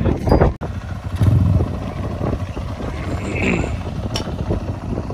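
Dirt bike engine running at idle, with a short louder burst about a second in.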